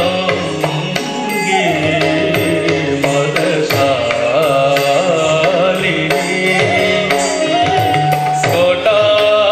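Odissi dance music: a melodic line sliding up and down in pitch over a steady drone, with a hand drum keeping an even rhythm.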